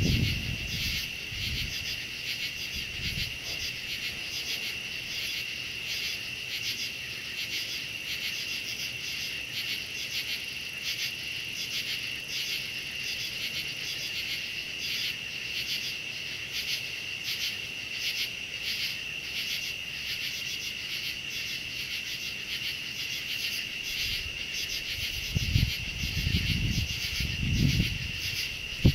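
Steady chorus of night-singing insects: a constant high-pitched trill with a fast, even pulsing beat. A few low rumbles come in near the end.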